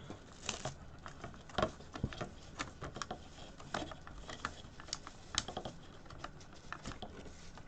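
Bubble wrap and plastic packaging being handled, with irregular small clicks and crackles throughout.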